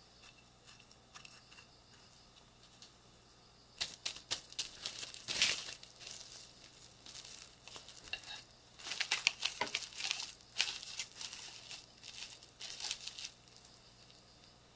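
Plastic cling film crinkling in irregular bursts as it is stretched and pressed around a hollowed-out kabocha pumpkin on a plate, from about four seconds in until shortly before the end. Before that, a metal spoon scrapes faintly at the cooked pumpkin flesh.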